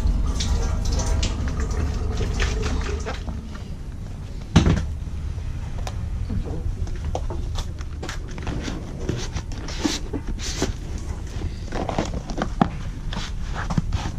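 Tap water running into a stainless steel sink while a juice carton is rinsed, stopping about four seconds in; a single sharp knock follows, then the crinkling and crackling of empty juice cartons being flattened and folded.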